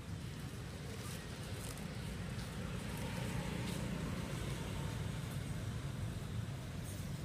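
Steady low rumble of outdoor background noise, with a few faint scattered clicks.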